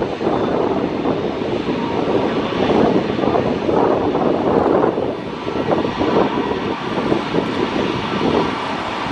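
Boeing 777-300ER's GE90-115B turbofan engines running steadily at low taxi thrust as the airliner rolls slowly along the runway.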